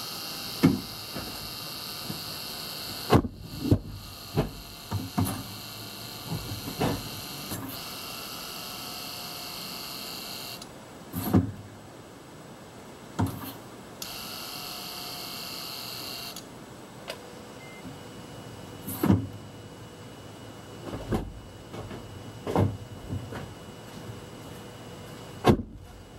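Gen 4 Prius engine being spun over by the hybrid system on its first test start, with its ignition coils still unplugged, to build oil pressure. A high whirring runs for about ten seconds with a short break, stops, then comes back briefly a few seconds later. Scattered sharp clunks and clicks sound throughout.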